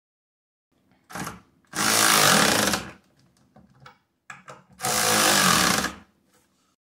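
Impact wrench running in two bursts of about a second each, driving the nuts tight on a steel hinge bracket bolted to an oak table leg, with a short blip of the tool just before each burst.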